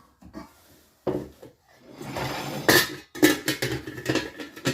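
Kitchenware and small metal and glass odds and ends clinking and clattering as they are rummaged through and set down, with a short rustle about two seconds in and a quick run of knocks near the end.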